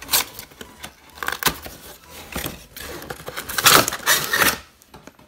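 Plastic blister packaging and card of a die-cast toy car multi-pack being handled and torn open: crinkling and clicks, with a louder ripping stretch about three and a half seconds in.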